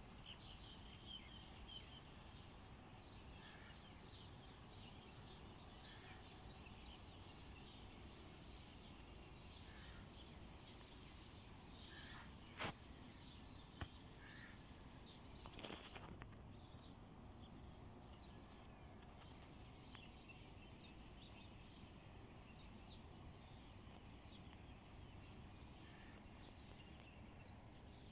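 Faint birds chirping here and there over quiet outdoor ambience, with two sharp clicks a little before the middle and a brief rustle shortly after.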